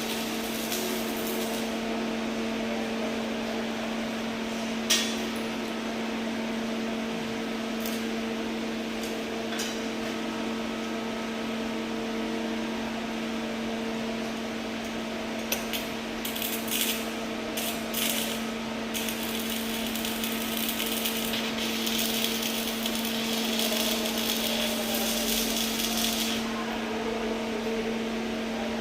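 Arc welding machine humming steadily, with a sharp metal knock about five seconds in and a few lighter taps. From about twenty seconds in, a crackling hiss like a welding arc burning lasts about six seconds.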